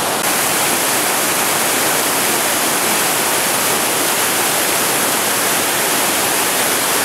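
Mountain waterfall cascading down over boulders: a loud, steady rush of falling water.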